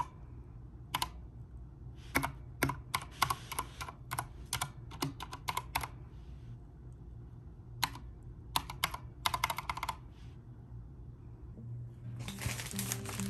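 Mechanical keyboard being typed on in short runs of keystrokes, a deep thocky clack, with a pause of about two seconds in the middle. Music comes in near the end.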